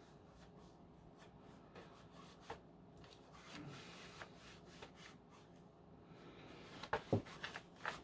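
Faint rubbing and handling of the plastic vacuum body while it is wiped clean, with small scattered clicks and a few sharper knocks of plastic near the end.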